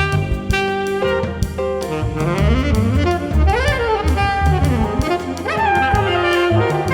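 Jazz ensemble playing an instrumental passage: saxophone lines with quick rising and falling runs over bass and drum kit.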